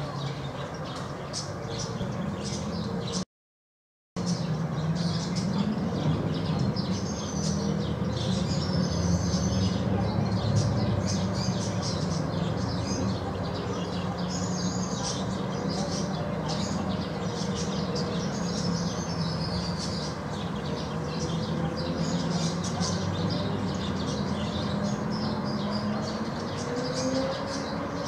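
Small birds giving repeated high chirps over a steady low engine drone that swells about five seconds in and eases near the end. The sound drops out completely for about a second just before the drone comes in.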